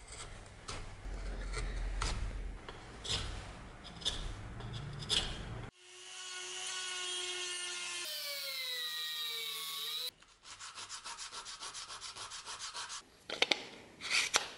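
A hand tool rubs and scrapes across a walnut knife-handle blank clamped in a vise, in separate strokes. About six seconds in, a small handheld rotary tool runs with a steady whine that dips in pitch and rises again as its bit is pressed into the wood, then grinds with a fast, regular pulsing. A few sharp knocks come near the end.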